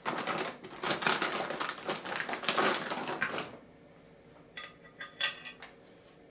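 Clear plastic bag crinkling and rustling as a macro focusing rail is pulled out of it, stopping about three and a half seconds in. A few light clicks follow as the bare metal rail is handled.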